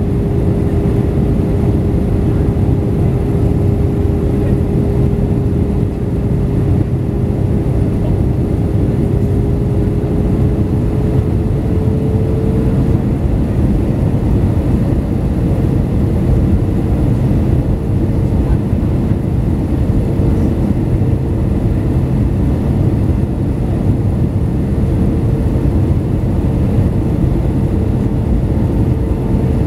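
Jet airliner cabin noise during the approach: a steady loud rush of engine and airflow noise with a droning engine hum. The hum rises slightly in pitch a little under halfway through, as engine thrust changes.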